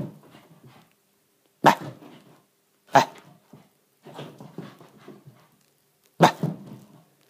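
Shiba Inu barking in play: four sharp barks, the first three about a second and a half apart and the last after a longer pause, with softer, lower dog sounds between them.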